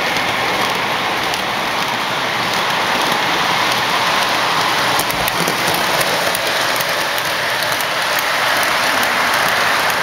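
Electric toy train with lit passenger cars running past on metal track: a steady, dense rattle of wheels on the rails, with faint light ticking in the second half.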